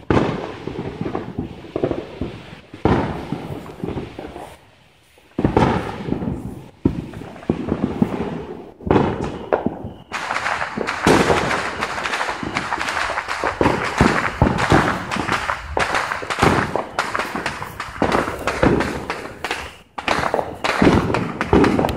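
Fireworks and firecrackers going off all around, with irregular pops and bangs and a short lull about five seconds in. From about ten seconds in it becomes a dense, nearly continuous crackle of many firecrackers at once.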